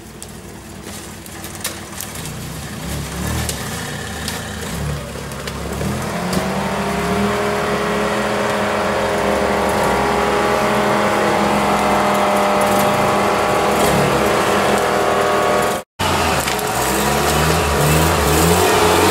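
UAZ-469 off-roader's engine pulling under load as it crawls up a steep gully. It grows louder over the first several seconds as the revs climb, then holds high and steady, with a brief dropout near the end.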